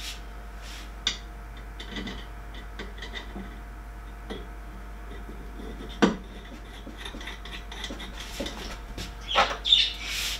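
Metal parts of a 3D printer kit clinking, knocking and rubbing as a frame upright is handled and fitted onto the printer's base. A single sharp knock comes about six seconds in, and a quick cluster of clicks near the end.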